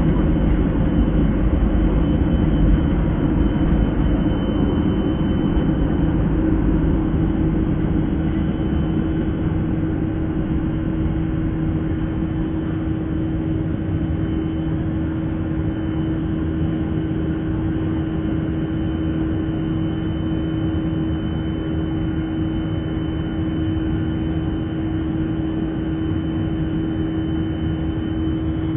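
The Boeing 737-300's CFM56-3 turbofan engines running at takeoff thrust, heard from inside the cabin over the wing: a loud, steady engine noise with a steady hum. The heavy low rumble of the takeoff roll eases about eight seconds in as the jet lifts off and climbs.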